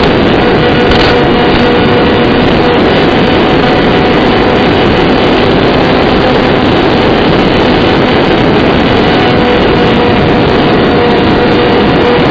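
Electric motor and propeller of an AR Wing Mini FPV flying wing running steadily in flight, a faint constant whine under loud wind rush.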